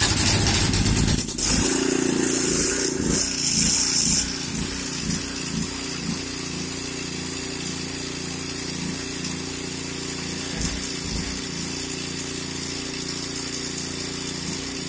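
Gas-powered Karcher 3,000 PSI pressure washer being pull-started and catching at once. It runs loudest for about the first four seconds, then settles into a steady run.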